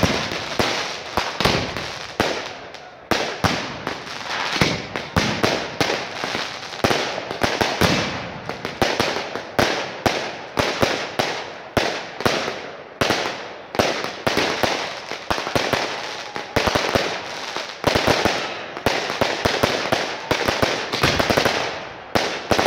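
Fireworks bursting overhead: a rapid, unbroken string of sharp bangs and crackles, several reports a second, with a brief lull a couple of seconds in.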